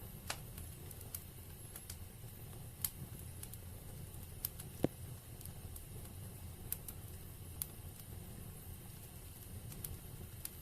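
Wood fire burning in a fireplace, crackling with scattered sharp pops over a low steady rumble. The loudest pop comes about five seconds in.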